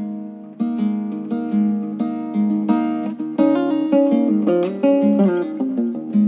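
Background music on acoustic guitar: plucked notes and chords in a steady pattern, with a quicker run of notes moving up and down in the middle.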